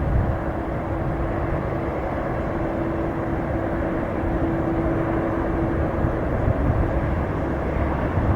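Jet airliner engines running, a steady rushing noise with a steady hum held through it.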